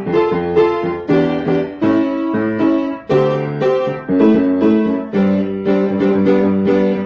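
Piano playing a funk tune: short, syncopated chords struck several times a second over a moving bass line.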